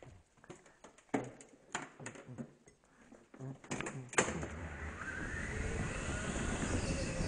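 Knocks and clatter as a driver settles into an indoor go-kart and grips the wheel, then after a sharp click about four seconds in, a steady low rumble with a faint rising whine as the kart moves off.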